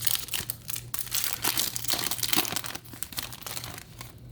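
Foil Yu-Gi-Oh! booster pack wrapper crinkling and tearing as the pack is torn open. The dense crackle dies away about three seconds in.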